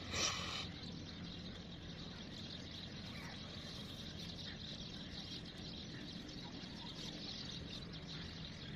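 Steady outdoor background noise with faint bird chirps, and a brief rustle a fraction of a second in.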